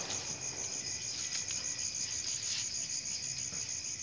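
Night-time crickets chirping: an even, high-pitched pulsing trill, several pulses a second, over a constant high insect buzz.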